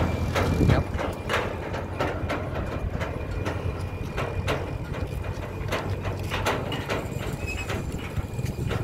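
Ford farm tractor hauling a heavy cassava trailer over a rough dirt road: the steel trailer body and hitch clank in irregular sharp knocks, about one to two a second, over the low rumble of the tractor engine. Loudest in the first second as the trailer passes, then steadier as it draws away.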